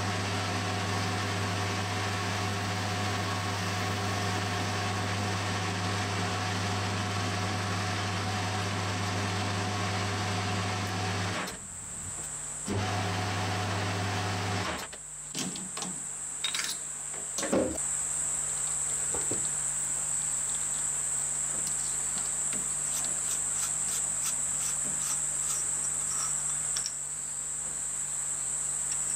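Metal lathe running steadily as it turns an aluminium part, a low hum with even overtones; it drops out briefly about 11 seconds in, runs again, and shuts off about 15 seconds in. After that come a few sharp metallic knocks and some faint ticking over a steady high-pitched whine.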